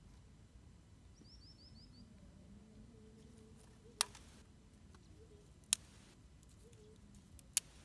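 Three sharp clicks about two seconds apart, each trailed by a brief hiss, from hands working a fire lay of dry twigs with a small red fire-lighting tool. A small bird chirps a quick run of five falling notes about a second in.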